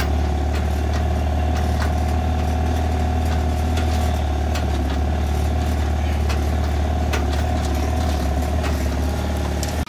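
Pickup truck's engine running steadily as the truck drives, heard from its open cargo bed, with scattered knocks and rattles.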